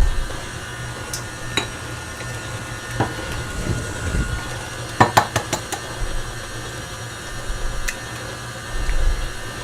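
Stand mixer running steadily on low speed, beating cheesecake batter, with scattered clinks and taps of dishes and utensils. A quick run of sharp clicks comes about five seconds in.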